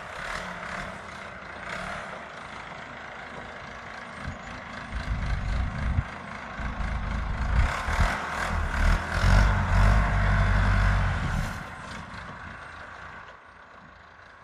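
Backhoe's diesel engine running, growing much louder about five seconds in and dropping back again a few seconds before the end.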